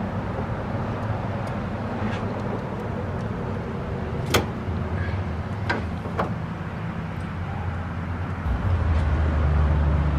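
Hand work in a car's engine bay: a few sharp clicks, the loudest about four seconds in, over a steady low hum that grows louder near the end.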